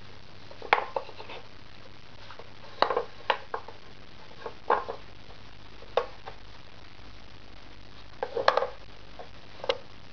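Wooden parts of a Pauli's Commander dog puzzle toy (pegs, flaps and levers) knocking and clattering as a small dog noses at them: irregular sharp knocks a second or more apart, with short bunches of clatter about three seconds in and again near the end.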